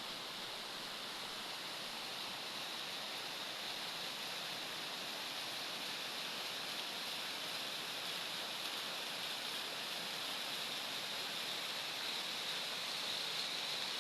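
Waterfall's falling water rushing as a steady hiss, getting a little louder near the end.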